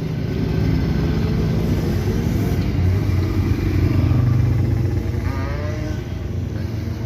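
A motorcycle engine running as it passes close by on the road, growing louder to a peak about four seconds in, then fading.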